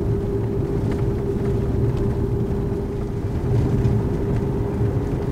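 Toyota RAV4 driving up a winding summit road, heard from inside the cabin: a steady drone of engine and tyre noise.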